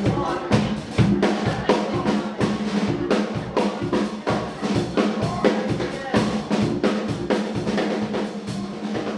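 A live rock band playing, with the drum kit out front: a steady beat of kick and snare strokes over a sustained low note.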